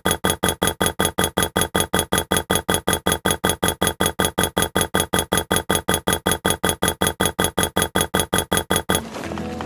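Background music: a fast, even pulse of identical stuttering notes, about six or seven a second, that cuts off near the end as a fuller passage begins.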